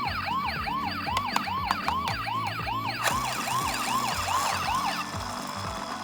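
Toy ambulance's electronic siren sounding a fast yelp, its pitch sweeping up and down about two and a half times a second, until it stops about five seconds in.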